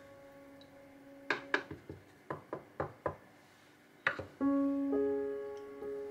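Soft piano background music with held chords, a new chord sounding about four and a half seconds in. Under it, a run of light knocks and taps as the wooden onigiri mould pieces are set down on the aluminium tray and cutting board, the loudest about four seconds in.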